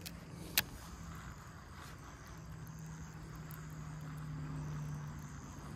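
Baitcasting reel during a chatterbait retrieve: a sharp click about half a second in, then a steady low whirr of the reel being cranked from about two seconds in.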